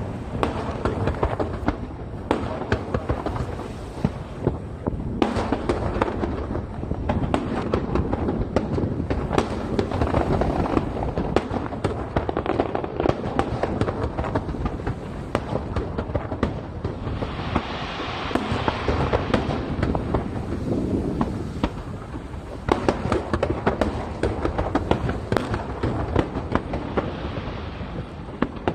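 Aerial fireworks shells bursting over the sea in rapid, overlapping succession, a continuous barrage of booms and bangs. Stretches of crackling from crackle-effect shells rise about two-thirds of the way through and again near the end.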